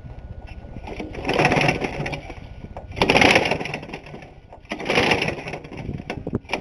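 Worn Briggs & Stratton lawnmower engine running, a fast even pulse underneath, with three loud bursts of crackling noise. The engine was earlier run without oil: its piston is loose in a scored cylinder, and it is blowing oil smoke.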